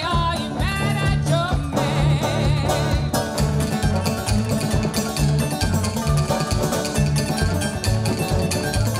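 Live string-band music: banjo and drum kit keep a steady beat under low bass notes. A high, sliding, wavering melody line runs over the first three seconds.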